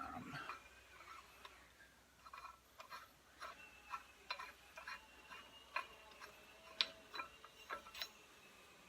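Irregular metallic clicks and clinks, about one or two a second, from steel lug nuts being threaded by hand onto the studs of a wheel adapter.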